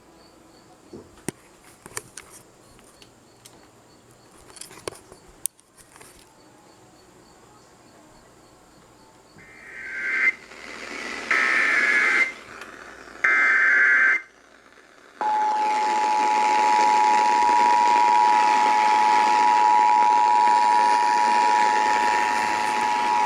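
Emergency Alert System signal received over the radio with hiss: three screechy bursts of SAME header data tones, each about a second long, then after a short pause the two-tone attention signal held steady for about eight seconds. Before it, faint crickets and a few light clicks.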